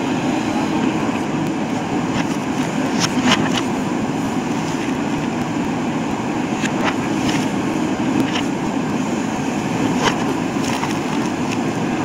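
Diesel engine of a JCB 3DX backhoe loader running steadily as the machine drives, with a few short sharp clanks.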